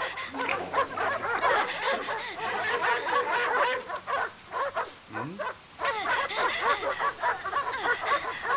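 Several dogs barking in an overlapping, continuous chorus as they give chase, with a brief lull about five seconds in.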